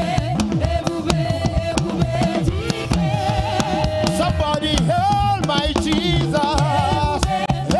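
Live gospel praise music with a drum kit and a bass line under a held melody line with vibrato.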